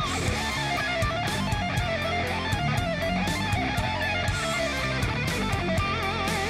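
Background music: electric guitar over a steady drum beat.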